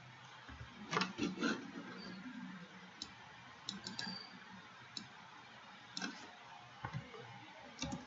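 Computer mouse and keyboard clicks: scattered, irregular clicks, some in quick pairs or threes, as values are entered and the cursor is worked in editing software.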